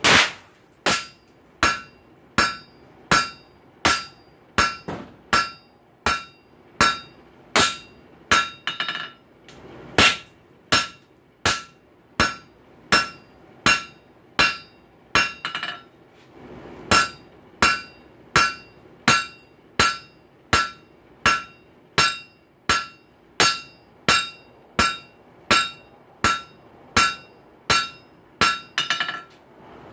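Blacksmith's hand hammer striking a rail spike on an anvil, about one and a half blows a second, each blow with a short metallic ring. The spike's head is at welding heat and is being forge-welded flat. The blows pause briefly about halfway through.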